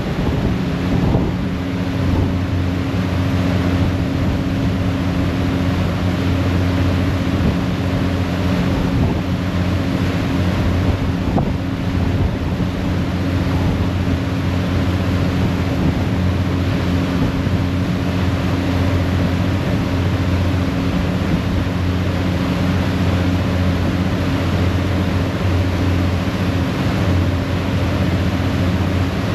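A harbour ferry's diesel engines running at a steady cruising drone, heard from the stern over the rushing churn of the propeller wake, with wind buffeting the microphone.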